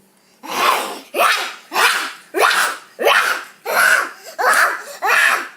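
A child imitating an angry dog: a string of about eight harsh, breathy barks, evenly spaced a little under a second apart.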